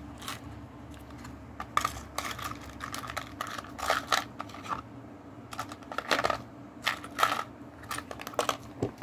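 Irregular light clicks and taps of small batteries and a clear plastic case being handled on a desk, with a steady low hum under them.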